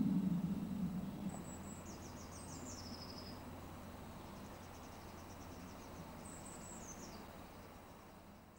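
A small songbird singing short high trilling phrases that drop in pitch, about a second in and again near the end, over a low rumble that fades away during the first second or so.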